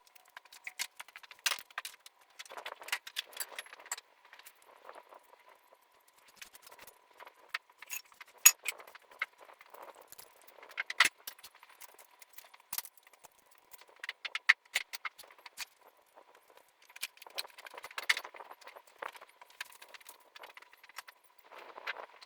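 Irregular clicks, knocks and rattling of small hard objects being handled and set down, with a few sharper clacks about 8, 11 and 13 seconds in and a faint steady tone underneath.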